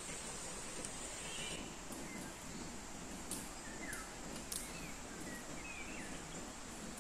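Outdoor ambience: a steady background hiss with short bird chirps scattered through, and a few light clicks around the middle.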